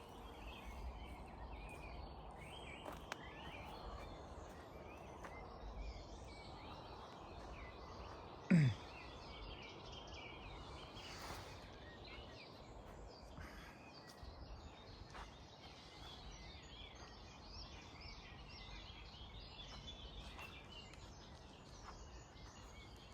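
Faint woodland birdsong, many small scattered chirps over a low steady background hiss. About eight seconds in, one loud brief sound slides steeply down in pitch.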